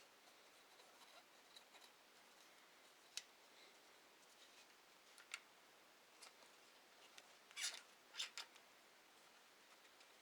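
Faint scratching and light clicks of a dry cotton swab rubbing over and into a Glock 34's polymer frame, with a small cluster of sharper clicks near the end.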